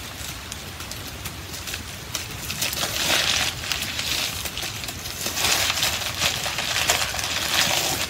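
A shipping package being opened by hand: crinkly packaging rustles and crackles, with small clicks, in two louder stretches, one about three seconds in and another from about five and a half seconds to near the end.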